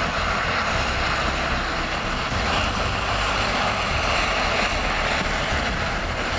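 John Deere 9RX 640 tracked tractor's engine running steadily under load while pulling a seed drill, a continuous even drone with a low hum beneath it.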